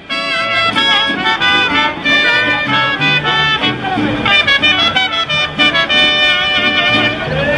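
Street brass band playing a tune, several horns sounding together.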